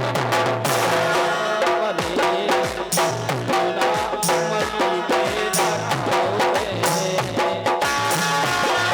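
Instrumental break of a Bundeli rai folk song: drums keep a steady beat under a repeating bass line and a held melody.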